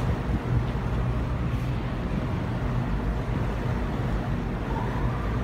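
Large industrial exhaust fan running steadily: a low, even hum with the rush of air through the grille.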